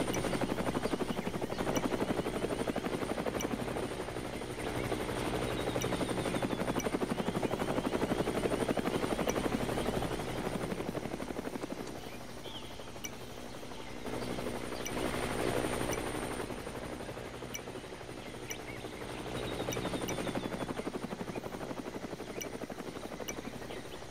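An engine or motor running steadily with a rapid, even pulse, swelling and fading in level several times.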